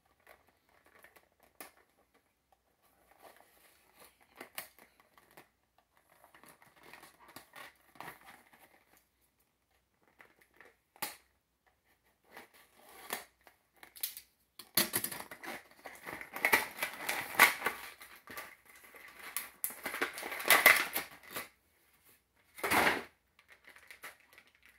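Action figure's plastic blister packaging being opened: scattered rustles and clicks at first, then louder, dense crinkling and crackling of plastic through the second half, with one sharp crack near the end.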